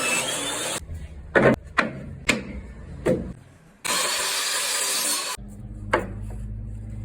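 Woodworking sounds in quick cuts: a power tool running with a steady hiss, alternating with stretches of low hum broken by several sharp knocks of wood being handled.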